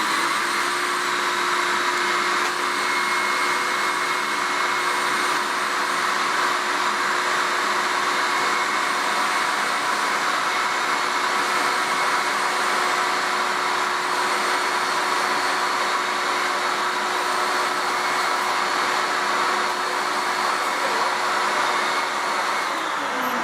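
MIE Ecologico water-filter vacuum cleaner with separator running steadily with a constant whine while vacuuming threads and hair off a wool carpet. Its motor is switched off near the end and the whine falls away as it winds down.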